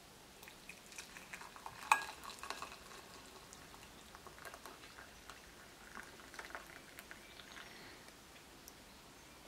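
Water poured from a kettle into a glass mug over a metal tea-infuser ball: faint splashing and crackling ticks, with one sharp tick about two seconds in. The pouring stops near the end.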